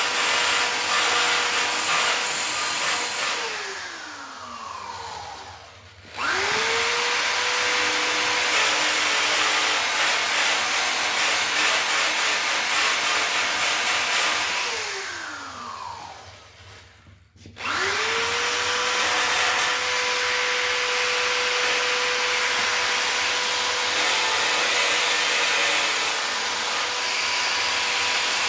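Small high-speed rotary grinder with a grinding tip running at a steady high whine while grinding down weld bumps on a steel bicycle frame. It is switched off twice, winding down over a few seconds each time, and quickly spun back up to speed.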